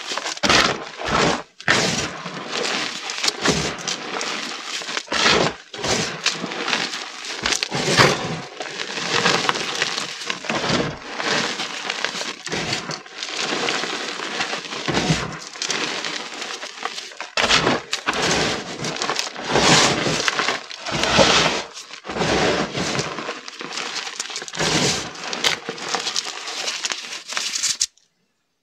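Pink reformed gym chalk crushed and crumbled between bare hands: continuous dry crunching and crumbling of packed powder in quick clusters with brief pauses. It stops abruptly near the end.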